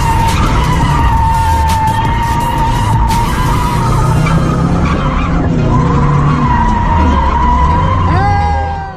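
Nissan S13 coupe with a KA engine drifting, heard from inside the cabin: the rear tyres squeal in one long, steady note that breaks briefly about halfway, over the engine running hard. A rising whine comes in near the end.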